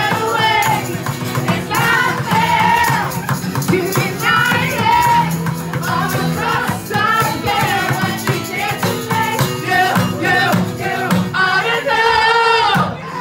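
A woman and a man singing live into microphones through a small portable speaker, with an acoustic guitar and a rattling percussion accompaniment. A long held note comes near the end.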